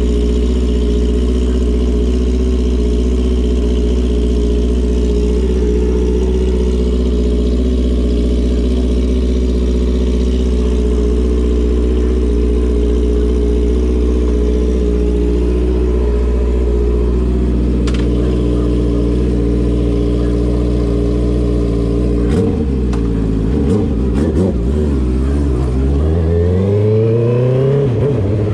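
Honda CB650R's inline-four engine idling steadily through a straight-through full exhaust with the dB killer removed. About 22 seconds in it is blipped several times, then revved up in a rising sweep near the end.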